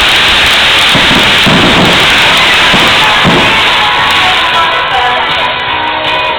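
Fireworks display set to music: loud music with a dense crackling haze of fireworks and a few low booms between about one and three and a half seconds in.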